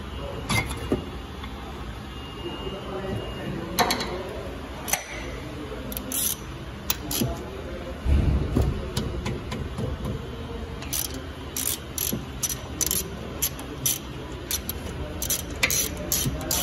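Metal clinks and taps of hand tools against a Mercedes S400's front brake caliper and pads, over a steady low workshop hum. The clicks are scattered at first and come quicker and closer together in the last few seconds.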